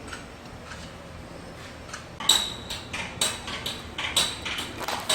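Irregular series of sharp metallic clinks or taps with a bright ring, starting about two seconds in and coming two or three times a second.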